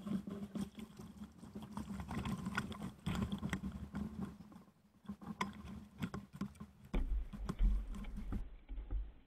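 Irregular clicks, knocks and scuffs carried through the hull of a small wooden-decked sailing canoe to a camera fixed on its bow, as the canoe is moved from the sand into shallow water. A low rumble comes in about seven seconds in and stops near the end.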